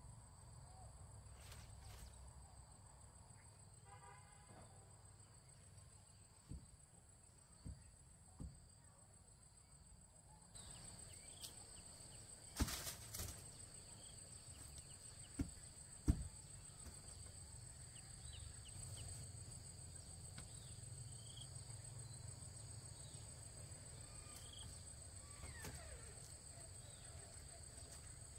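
Steady high-pitched drone of insects, with a handful of short sharp knocks scattered through, the loudest two about halfway through.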